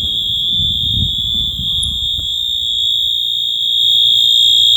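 Building fire alarm sounding a continuous high-pitched tone, growing louder about four seconds in.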